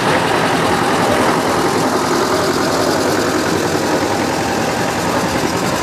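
Vintage tractor engine running steadily at low speed, its regular firing pulses heard up close.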